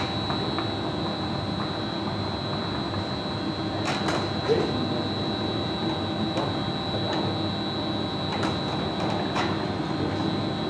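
Gas-fired glory hole running steadily: the burner and its blower give an even noise with a constant high whine. A few light clicks come from the blowpipe being turned on its rest.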